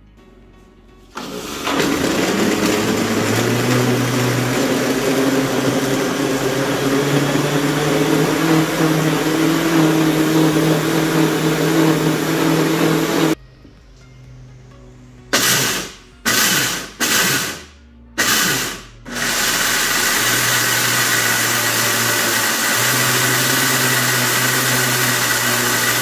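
Oster OLIQ610 1400 W blender motor running loud and steady for about twelve seconds while blending orange juice, its pitch stepping up soon after it starts, then stopping abruptly. After a short pause it gives four quick pulses chopping peanuts, then runs steadily again.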